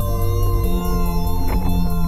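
Ambient background music with long held notes.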